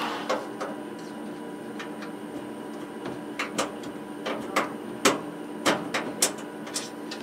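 A dozen or so irregular sharp clicks and pops, more of them in the second half, over a faint steady electrical hum.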